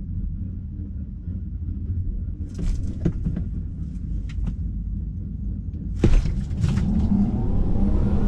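A low rumble with a few light clicks, then a sharp knock about six seconds in, followed by a rising whine as the Tesla Model 3 Performance's dual electric motors launch the car hard off the drag strip's start line.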